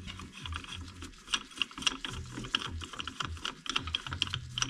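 Ratchet wrench clicking in quick, irregular runs as it tightens the bolt of a makeshift bolt-and-washer press, drawing the wheel hub into a new rear hub bearing.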